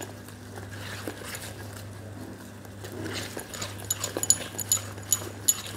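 Wire whisk beating thick chocolate cake batter in a stainless steel bowl, the tines clicking against the metal. The clicks are sparse at first and come thick and fast from about three seconds in.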